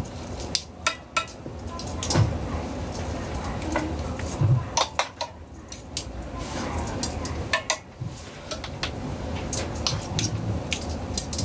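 Metal utensils and dishes clinking and tapping in an irregular run of sharp clicks, over a steady background hum.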